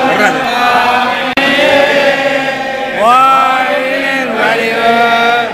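Several voices chanting Hindu religious recitation together, in sustained, gliding phrases. The sound breaks off sharply for a moment about a second in, then picks up again with a loud rising phrase around the middle.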